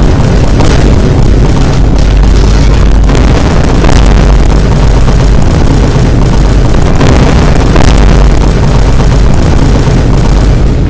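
A dense wall of overlapping Vine boom sound effects, pitched to play a song's melody, very loud and heavily distorted with deep bass.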